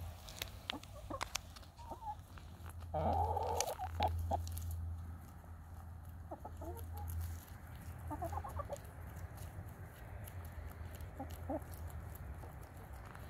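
Backyard hens clucking softly as they forage, in short scattered calls, with sharp clicks of pecking at the ground. A louder, harsher burst comes about three seconds in.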